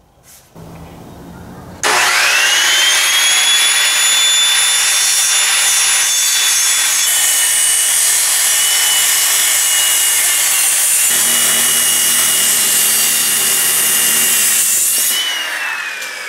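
Corded handheld circular saw starting up about two seconds in and cutting through a wooden frame board at a steady high whine. Near the end the blade winds down, its pitch falling as it coasts to a stop.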